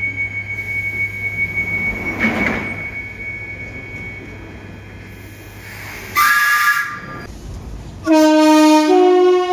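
Train horns: a short, high blast about six seconds in, then a louder, longer horn sounding several notes at once from about eight seconds on. Before them, steady train noise with a thin whine.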